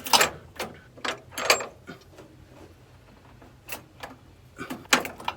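Scattered knocks and clicks from hand work on a combine's chain idler and its adjuster: about seven sharp separate strikes, two close together near the start and another pair near the end.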